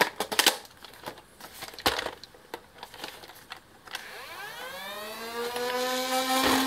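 Plastic clicks and knocks as the drum magazine is seated in a Nerf Modulus ECS-10 blaster. About four seconds in, its battery-powered flywheel motors spin up with a rising whine that levels off into a steady hum, a sign the freshly fitted batteries work.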